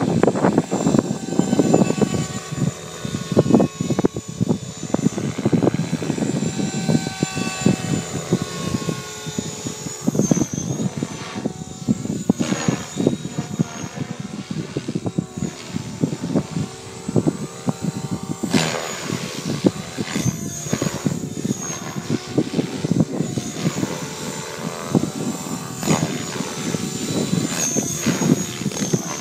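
Electric Align T-Rex 550 RC helicopter flying aerobatics: a high motor whine and rapid rotor-blade chop, its pitch rising and falling as the rotors load and unload through the manoeuvres.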